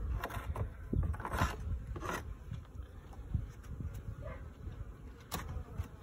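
Honeybees buzzing around an opened barrel top-bar hive, with a few sharp knocks and scrapes of the wooden top bars being handled and shifted.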